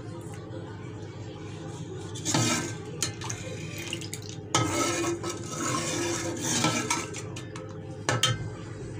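Steel ladle stirring thin, simmering masoor dal in a metal cooking pot, knocking and scraping against the pot's sides several times.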